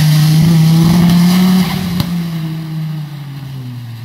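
Rally car at full throttle passing close by, its engine at its loudest for about the first second and a half, then dropping off abruptly and falling in pitch as the car speeds away down the stage.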